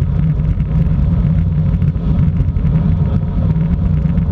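Steady low wind and road rumble on a bicycle-mounted camera riding along a paved country road.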